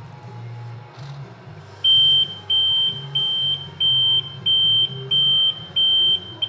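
Reverse-alarm beeper on a scale RC wheel loader sounding about two seconds in: seven evenly spaced high beeps, about one and a half a second, over a low hum. The beeper is switched from the forward/reverse channel so that it sounds only when the loader is driven in reverse.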